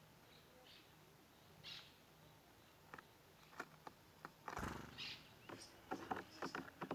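Birds: a few faint, short chirps, then from about halfway a busier stretch of sharp clicks and brief rustling bursts.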